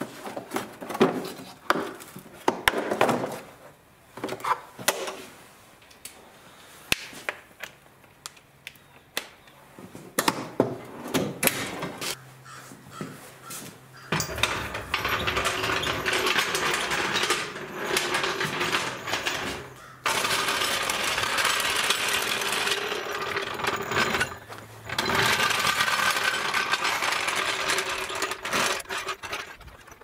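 Metal tools clinking and clattering in a steel toolbox drawer, then a long, steady, rattling rumble in three stretches of a steel floor jack being rolled on its wheels across a concrete floor.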